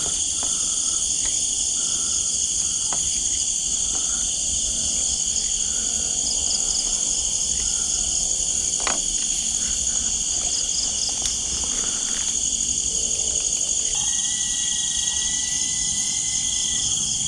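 Steady night chorus of crickets and other insects, shrill and continuous in several high layers. A soft note repeats about once a second through the first few seconds, and a thin steady whistle-like tone joins for about three seconds near the end.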